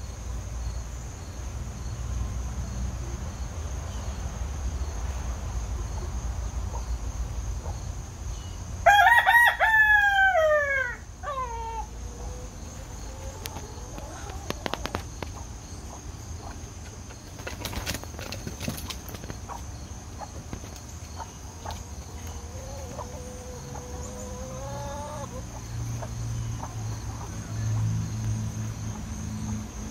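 Rooster crowing once, loudly, about nine seconds in, the crow's pitch falling away at its end. A quieter, drawn-out chicken call follows later, over a steady high insect trill.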